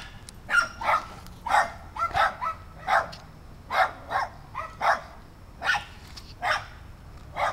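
A dog barking repeatedly in short, sharp barks, about one to two a second.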